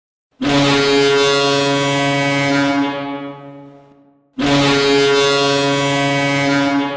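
Florida Everblades' ice-hockey goal horn sounding two long, low blasts, signalling a goal. The first is held for a little over two seconds and then fades away. The second starts about four seconds in and is still sounding at the end.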